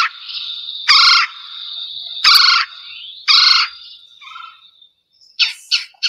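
Recording of a red-bellied woodpecker giving its rolling, trilled call four times, about a second apart, with a thin, steady whistle from another bird behind it. A few shorter, sharper notes follow near the end.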